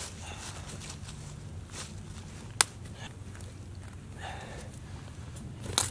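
Sticks and dry leaves rustling and clicking as they are handled and pushed into the ground around a trap, with one sharp click about two and a half seconds in.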